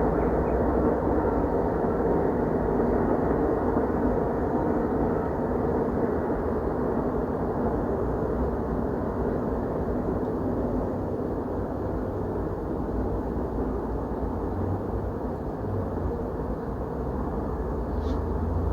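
A steady, distant rumbling drone that slowly fades, of unknown source; the uploader calls it a loud, supernatural noise.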